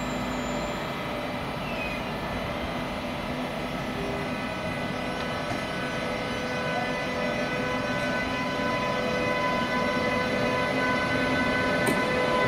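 DB Class 101 electric locomotive pulling away with an Intercity train. Its traction equipment gives off several steady whining tones over a rumble, slowly growing louder as it moves off.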